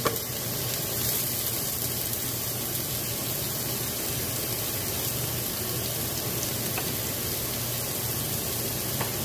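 Sliced bell peppers and purple onion sizzling steadily in hot grapeseed oil in a frying pan.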